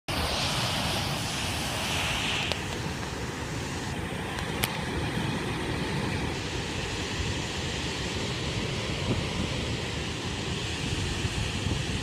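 Floodwater rushing over a dam spillway, a steady churning rush of water, with wind buffeting the microphone.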